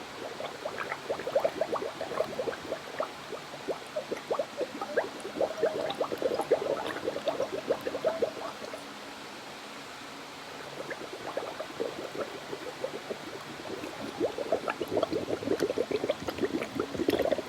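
A person gargling water held in the mouth, making a fast bubbling noise. It comes in two long bouts with a short pause between them.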